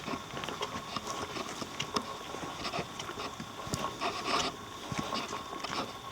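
Footsteps on a forest trail: irregular short crunches and rustles every few tenths of a second, with a faint steady high tone behind them.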